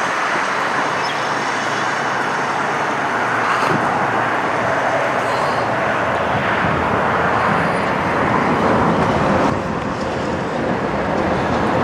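Peterbilt 389 long-hood semi truck with a trailer driving slowly past, its diesel engine running under a steady noise of road traffic.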